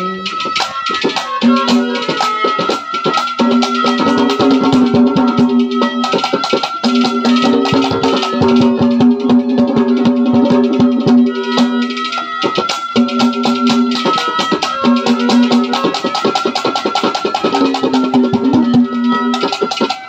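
Instrumental break in Haryanvi ragni folk music: fast, dense drumming and rattling percussion under a melody played in long held notes.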